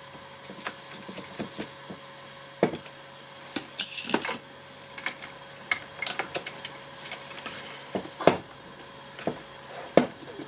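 Light clicks, taps and knocks of power-tool parts and wires being handled, with a short rubbing sound about four seconds in and the sharpest knocks near eight and ten seconds.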